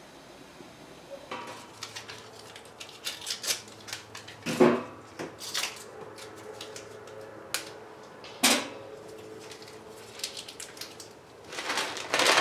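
Cookware clatter: a frying pan on a small metal stick-stove grill being handled, with scattered clicks and knocks and two louder metallic clanks about four and a half and eight and a half seconds in.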